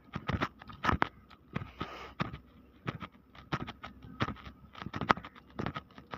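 Footsteps on a gritty concrete deck at a walking pace, about two steps a second.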